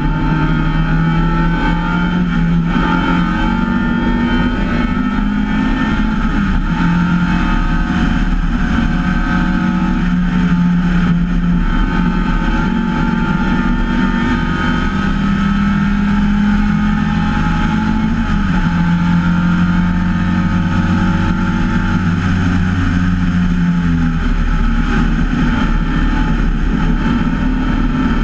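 MGA race car's four-cylinder engine running hard at racing speed, heard from the open cockpit. Its pitch rises and falls as it is driven through corners and onto a straight, over a steady rush of wind.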